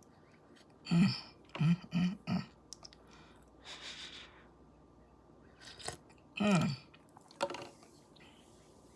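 A woman tasting hot coffee: a few short murmured 'mm' sounds, a breathy hiss about four seconds in, then a longer falling 'mmm' of enjoyment.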